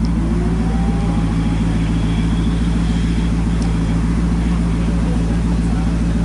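Maserati GranTurismo's V8 engine idling steadily.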